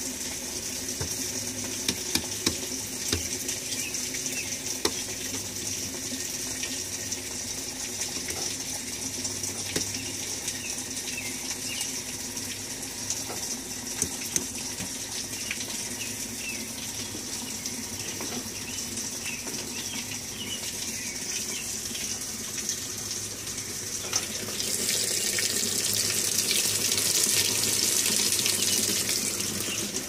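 Kenmore Series 90 top-loading washing machine filling its tub with water: a steady rush of water over a faint motor hum, with a few light clicks in the first seconds. The water gets louder and fuller about 25 seconds in.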